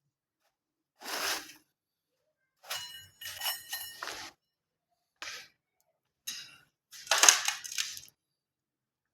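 Five short bursts of scraping and clinking, the longest with a metallic ring, separated by silence.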